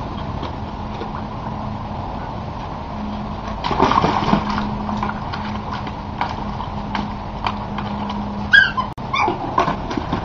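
Staffordshire bull terrier whimpering, with a short high whine about three-quarters of the way through and more brief whines near the end.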